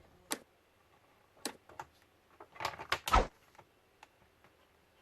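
Sharp clicks and knocks of hard plastic laptop parts being handled and fitted together, a few single clicks and then a quick cluster about two and a half seconds in.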